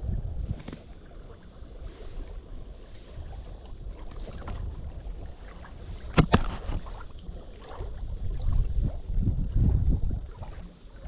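Wind buffeting the microphone, with rustling and handling noise as a caught carp is held and unhooked; one sharp click about six seconds in, and the rumbling grows louder toward the end.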